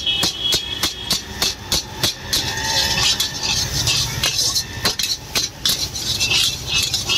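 Steel ladle striking and scraping a large iron wok over and over as egg fried rice is stir-fried, sharp metallic clanks about three a second. A steady low rumble runs underneath.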